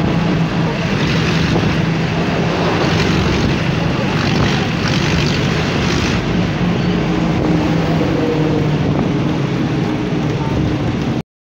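A steady engine hum at a constant low pitch over a wash of outdoor noise. It cuts off abruptly near the end.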